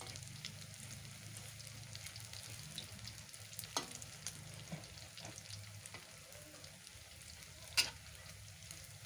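Battered tofu fritters sizzling in hot oil in a wok, with a metal ladle scraping and clinking against the wok as they are turned; two sharper clinks, just before four seconds and near eight seconds in.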